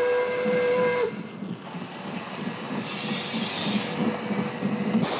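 DB class 50 steam locomotive: a whistle blast of about a second, then the steady chuff of its exhaust beats at about two to three a second, with a brief hiss of steam a little past the middle.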